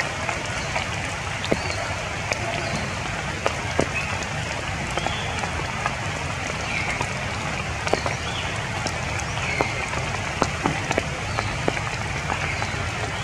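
Steady rain falling through tree foliage, with scattered single drops ticking sharply at irregular times. A few faint short high chirps sound through it.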